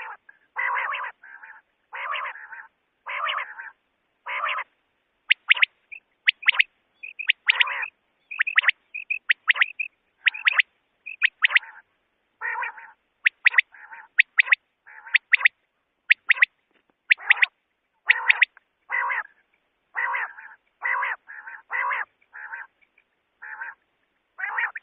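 Common quail calling over and over in short calls about once a second, the calls rougher and lower in the first few seconds and again in the later part, with runs of sharp, high clipped notes in twos and threes through the middle.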